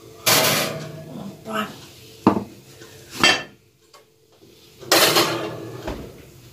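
Glass casserole dish clattering against a gas oven's wire rack as it is pulled out and set down on the counter, in several separate clanks. Near the end comes the rattle of the rack and a low thump as the oven door is shut.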